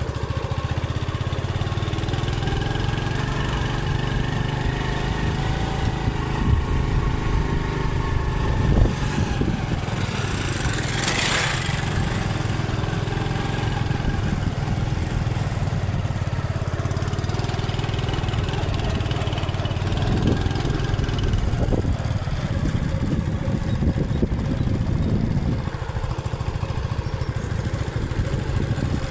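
Honda CD70's small single-cylinder four-stroke engine running as the motorcycle is ridden, its pitch rising and falling with the throttle. A brief hiss comes through about eleven seconds in.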